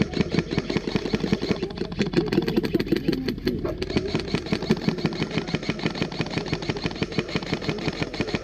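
Airsoft electric guns firing on full auto: a fast, continuous stream of shots with no break.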